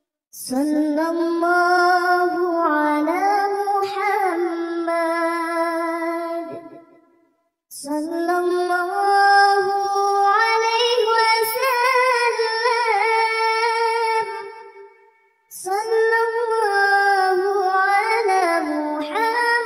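A high-pitched, child-like voice singing a shalawat unaccompanied, in three long drawn-out phrases with ornamented, wavering notes, each separated by a brief silence.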